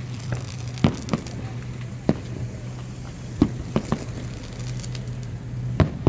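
Fireworks going off, heard as about seven sharp bangs at irregular intervals over a steady low hum.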